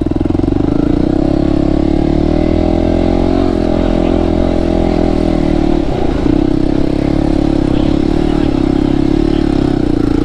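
Motorcycle engine running at fairly steady revs, with a brief waver in pitch about six seconds in.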